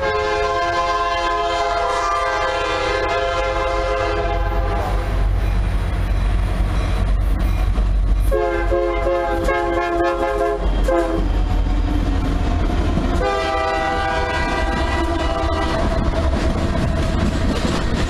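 Union Pacific SD70M diesel locomotive sounding its multi-chime horn in three blasts, a long one of about five seconds then two shorter ones, as it passes close by. A low, continuous rumble of the locomotive and its freight cars runs underneath.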